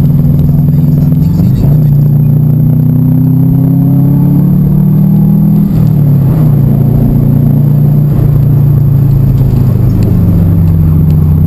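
Subaru Forester SF5's flat-four engine droning steadily, heard from inside the cabin while driving. Its pitch climbs slowly for a few seconds, then steps down about five and a half seconds in as the revs change.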